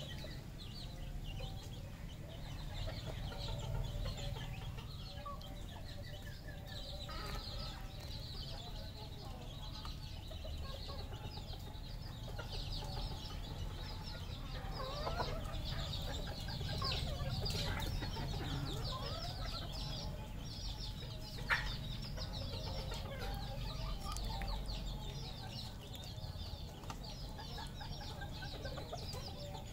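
Red junglefowl clucking, with short rising and falling calls, over a dense, steady chatter of high chirps. A single sharp click comes about two-thirds of the way through.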